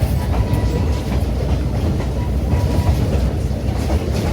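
Passenger train car rolling along the track: a steady low rumble with occasional clicks from the wheels and rails.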